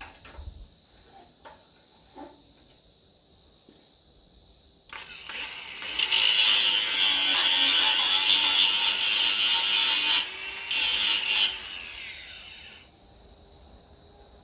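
Angle grinder grinding through the head of a steel pin: a few light clicks, then about five seconds in the grinder runs hard against the metal for several seconds with one short break, and winds down. A short sharp noise right at the end.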